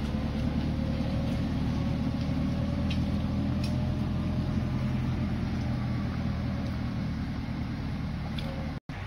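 John Deere tractor's diesel engine running steadily as it pulls a trailer along a muddy track, a low even engine note with a thin whine above it. The sound drops out abruptly for an instant near the end.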